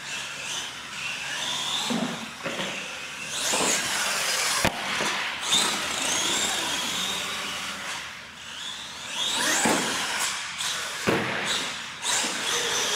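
Electric radio-controlled monster truck motors whining, the pitch rising and falling repeatedly with the throttle. A single sharp knock comes about four and a half seconds in.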